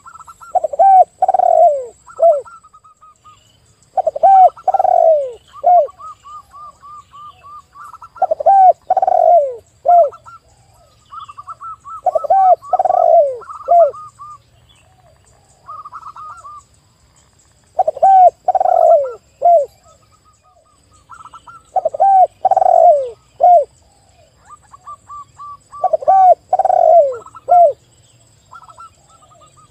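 Spotted dove and zebra dove cooing together. Loud phrases of three or four falling coos repeat about every four seconds, and between them come quicker runs of short, higher notes.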